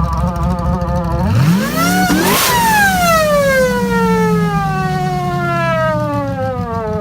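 Supercharged car engine revved once: the supercharger whine rises steeply for about a second, then falls slowly as the revs drop, over the steady drone of the engine.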